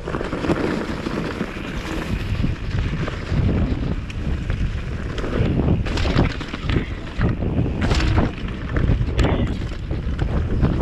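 Wind buffeting the action camera's microphone while a Commencal V4.2 downhill mountain bike rattles along a rough trail, with frequent knocks and jolts.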